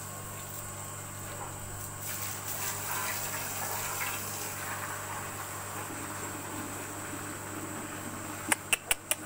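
Water from a garden hose splashing onto a wet concrete floor and into buckets, over a steady low hum. Four sharp clicks come in quick succession near the end.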